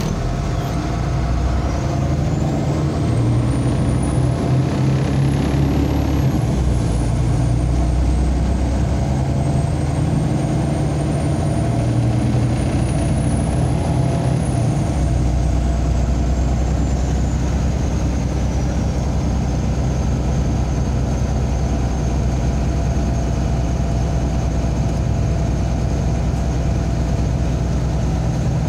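MAZ-203 city bus driving, heard from inside the passenger cabin: a steady low engine drone with road noise. A faint high whine rises over the first few seconds, holds, then eases down to a steady pitch after about fifteen seconds.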